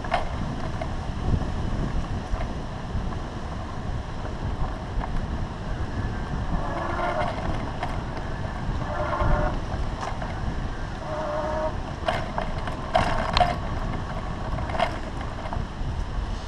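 Wind buffeting a handlebar-mounted action-camera microphone on a moving bicycle, with a steady low rumble of tyres on a dirt path. Brief higher-pitched tones come a few times midway, and several sharp clicks or rattles come near the end.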